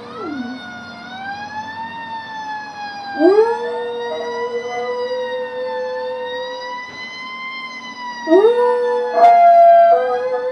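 A beagle mix howling along with a fire truck siren. The siren wails slowly up and down throughout, while the dog's long held howls rise in about three seconds in and again near the end, where they are loudest.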